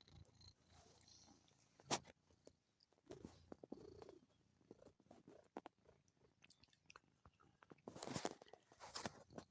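Faint wet clicks and smacks from a Munchkin cat's mouth, with one sharper click about two seconds in and a louder rustle near the end.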